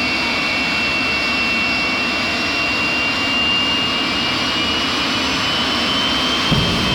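Jet dragster's jet engine running steadily, a loud roar with a thin high turbine whine that creeps up in pitch. Near the end a sudden thump, after which the deep rumble grows louder.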